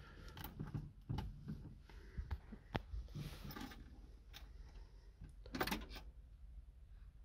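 Scattered small clicks, knocks and rustles in a car cabin as the controls of a Wartburg 353W are handled before a cold start, with a slightly louder rustle about five and a half seconds in. The engine is not yet running.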